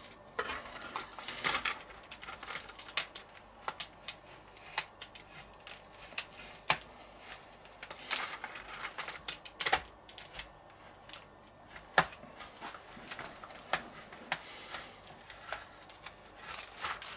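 Metal spatula scraping frozen ice cream off a chilled stainless steel pan as it rolls it up, in short irregular scrapes and clicks.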